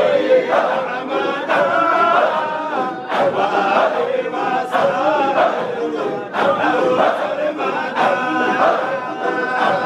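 Large crowd of men chanting a devotional song together in unison, voices sliding in pitch. Sharp beats fall about every one and a half seconds.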